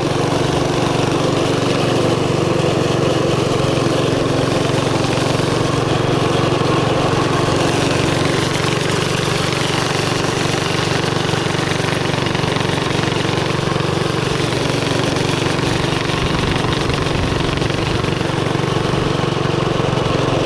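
Mini bike's small single-cylinder engine running steadily at a fairly even speed while riding.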